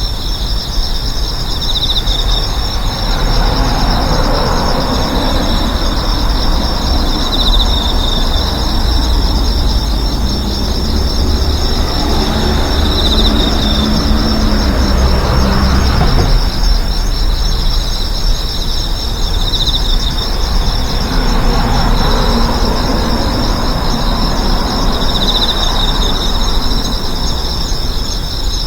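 Street ambience: about three vehicles pass by one after another, each swelling and fading, over a constant high chirring of insects such as crickets or cicadas.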